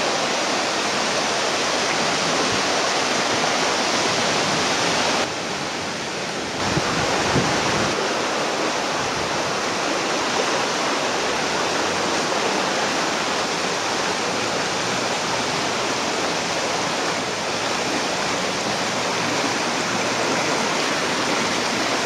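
Swollen Cannon River floodwater rushing fast past and through the stone foundations of a ruined mill: a steady, dense rush of moving water, briefly softer about five seconds in.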